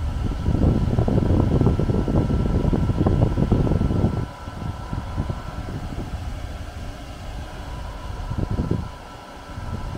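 Moving air from a running fan buffeting the microphone: a loud, fluttering low rumble over a faint steady motor hum. It eases about four seconds in and continues more softly.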